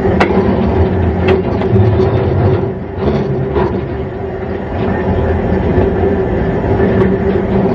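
Steam locomotive running under load, a steady dense rumble with a few sharp metallic clanks.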